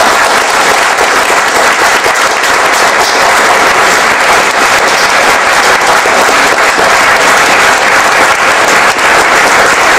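A large audience applauding, a dense, steady clapping that holds at one level throughout.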